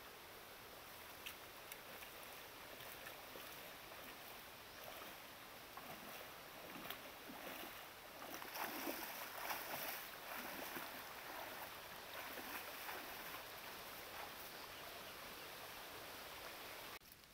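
Water splashing as a person wades through a shallow stream, over a steady rush of flowing water; the splashing is loudest about eight to eleven seconds in, and the sound cuts off suddenly near the end.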